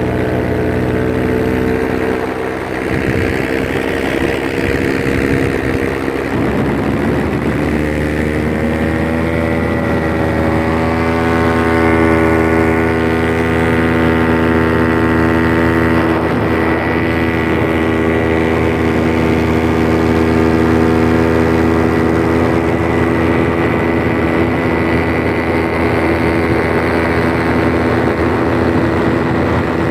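Paramotor engine and propeller running steadily in flight. Its pitch dips briefly a couple of seconds in, then climbs over several seconds as the engine speeds up and gets a little louder, and holds there.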